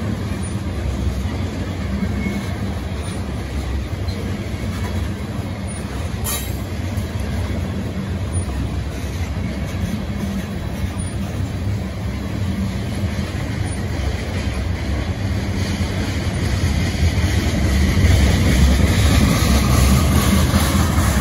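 Freight train of tank cars rolling past at close range: a steady rumble and clatter of steel wheels on the rails, with a sharp clack about six seconds in. It grows louder near the end.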